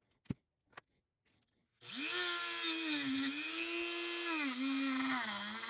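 Two light clicks, then about two seconds in a small high-speed power tool starts up and runs with a whine that sags in pitch several times as it is pressed into work.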